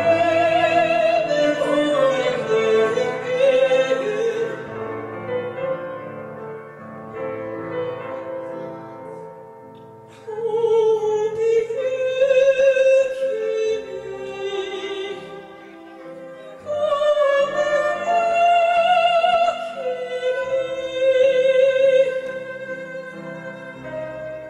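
A young girl singing a slow, classical-style song into a microphone over instrumental backing music. Her phrases swell loud and drop back, with quieter stretches between them, the longest about a quarter of the way in.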